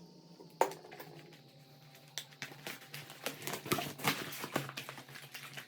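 Dishes and utensils clinking and clattering in irregular clicks, sparse at first and much denser from about two seconds in, over a steady low hum.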